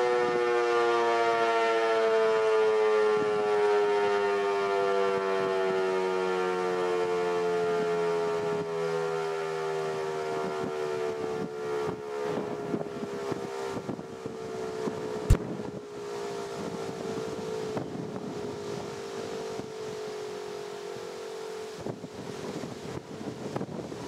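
Federal Signal 508 outdoor warning siren winding down after its monthly test: one steady tone with many overtones, slowly falling in pitch and fading. Wind crackles on the microphone in the second half, with a sharp click about fifteen seconds in.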